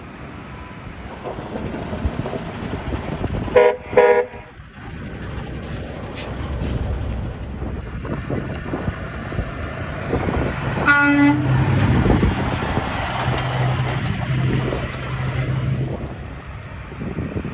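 Truck horn giving two short blasts about four seconds in over passing road traffic, then a single short toot from a lower-pitched horn near the middle, followed by a heavy truck's engine drone passing.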